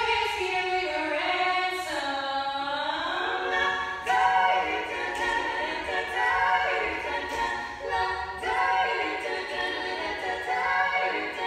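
Barbershop singers performing a cappella in close harmony. They hold chords, with a sliding pitch swipe about two seconds in.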